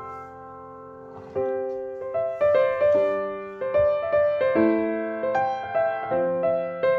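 Soft solo piano music: a held chord fades away, then from about a second and a half in, single notes are struck two or three a second in a gentle melody.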